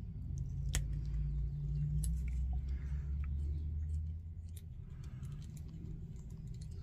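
A few light clicks and taps of small metal parts and tools being handled, over a low steady hum that eases about four seconds in.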